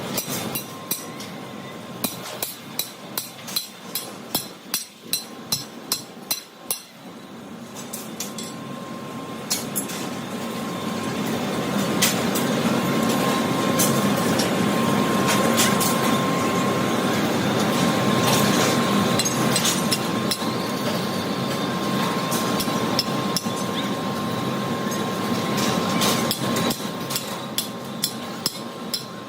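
Metal-forming machinery: sharp metallic strikes, about two a second, for the first several seconds. Then a steady, loud machine noise with a thin whine through it, and a few more strikes near the end.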